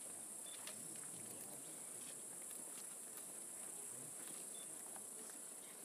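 Steady high-pitched insect chorus, with a few faint scattered clicks.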